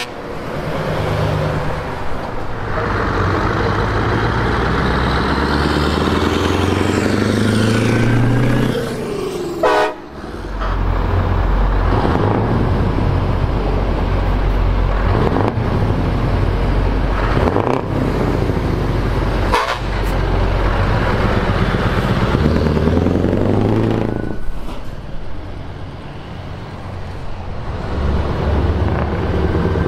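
Heavy trucks' diesel engines driving past one after another, each pass rising and then falling in pitch, with a short horn toot about ten seconds in.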